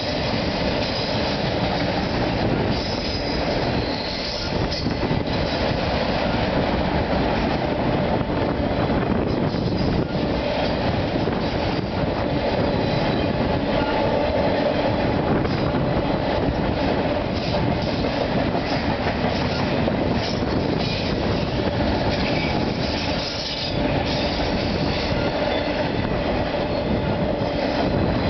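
Norfolk Southern freight train of autorack cars rolling past close by at steady speed: a continuous rumble and clatter of steel wheels on the rails.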